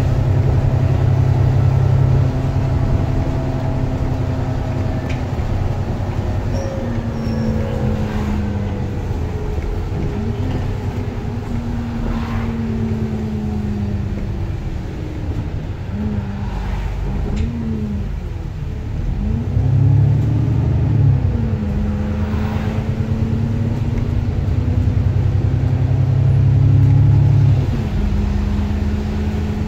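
Alexander Dennis Enviro400 MMC double-decker bus heard from inside the passenger cabin while moving: a loud, low engine drone with a whine that repeatedly rises and falls in pitch as the bus speeds up, changes gear and slows. The drone is heaviest in stretches and drops away near the end.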